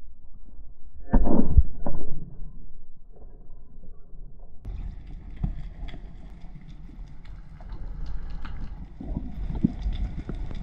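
Rubber-band speargun fired underwater: a loud, dull thump about a second in, with two smaller knocks just after. It is followed by a steady underwater rumble and hiss with faint scattered crackling.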